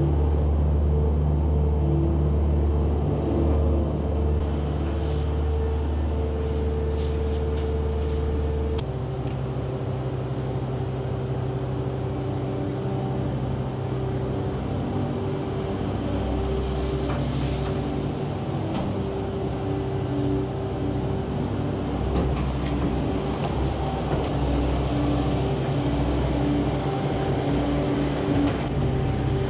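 Kubota skid steer's diesel engine running steadily as it pushes straw bedding bales, its engine note dropping to a lower pitch about nine seconds in and holding there.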